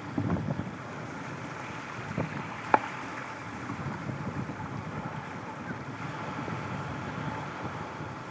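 Wind buffeting the microphone over a steady outdoor rush, with a few light knocks of something being handled and one sharp click a little under three seconds in.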